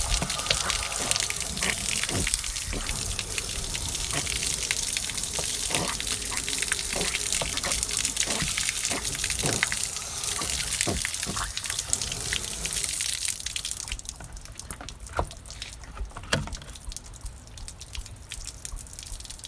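Water rushing and splashing out of an RV water heater's drain opening while a tank-rinser wand on a hose sprays inside the tank, flushing out sediment. About 14 seconds in the rush drops off, leaving scattered drips and splashes.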